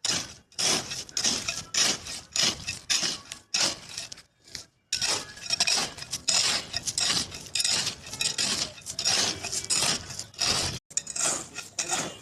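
Metal hand tools scraping and clinking against a hard surface in quick repeated strokes, with short pauses about four and a half seconds in and again near the end.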